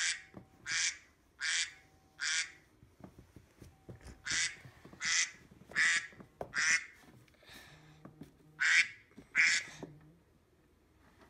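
iPhone alarm playing a duck-quack tone: short quacks about three-quarters of a second apart, in two groups of four and then a last pair near the end.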